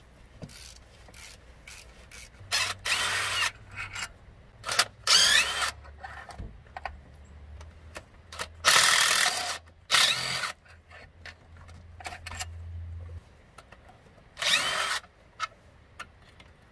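Cordless power tool spinning a 15 mm socket in short bursts, about nine in all, with the motor's pitch rising in each, as it backs out the bolts holding the power steering pump bracket to the engine.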